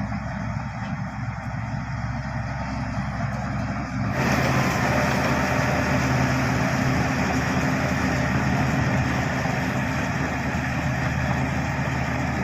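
Bulldozer's diesel engine running steadily. About four seconds in it suddenly gets louder and brighter, then holds at that higher level.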